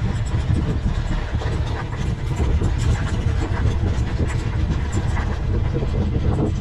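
A mountain bike rolling fast downhill over loose gravel and rocks: tyres crunching, the bike rattling with many small knocks, over a steady heavy low rumble of wind and ground noise on the bike-mounted camera's microphone.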